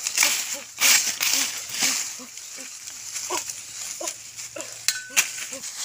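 Dry leaves and twigs rustling and scraping as they are swept aside by hand, the loudest strokes about one and two seconds in. Under them run many short, low animal calls, several a second, and a steady high insect hiss.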